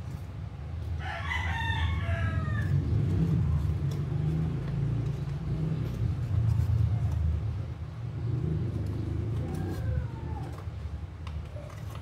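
A low, steady rumble throughout, with a long crowing bird call about a second in that falls in pitch at its end, and a fainter call near ten seconds.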